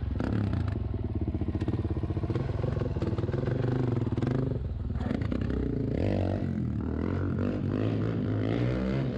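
Suzuki dirt bike's single-cylinder engine running at a steady idle with a fast, even pulse. About five seconds in it dips briefly, then the revs rise and fall.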